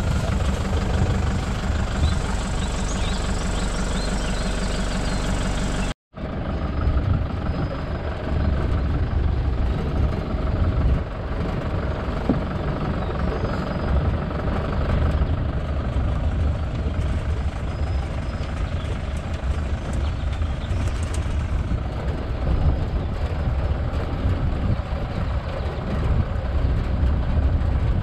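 Safari vehicle's engine idling steadily for about six seconds. After a sudden cut, the vehicle is driving, its engine and a low rumble running steadily.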